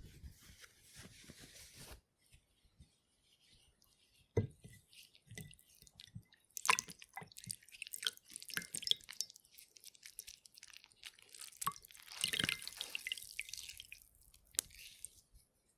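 Water-soaked fabric squeezed by hand: irregular wet squelches and crackles as water is wrung out and drips, with a sharp knock about four seconds in and a denser rush of wringing near the end.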